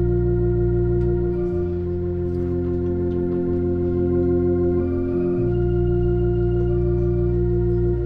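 Church organ playing slow, sustained chords, with one upper note held throughout while the bass note changes every couple of seconds.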